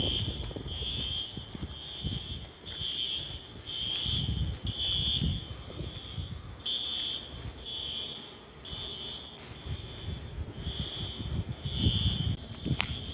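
A high-pitched chirp or beep repeating steadily, about three times every two seconds, over an uneven low rumble.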